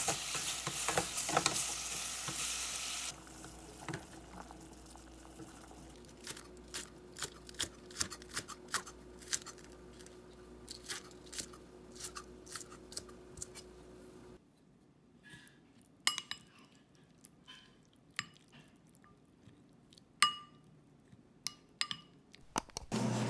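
Beef and radish sizzling in a stainless steel pot as a wooden spoon stirs them, then a knife chopping green onions on a cutting board in quick, uneven knocks, then a few light clinks of a spoon in a ceramic soup bowl near the end.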